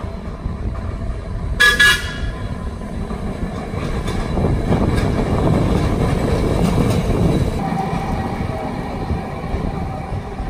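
TECO Line streetcar sounding one short toot of its horn about one and a half seconds in, then rumbling past on its rails, loudest in the middle, with a steady whine joining near the end.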